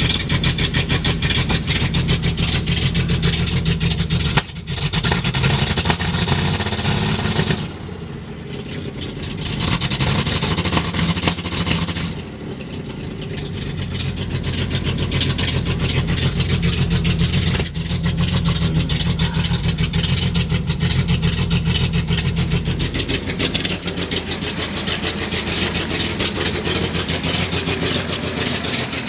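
1976 Datsun 280Z's L28 straight-six idling roughly and unevenly, its level dropping and recovering several times.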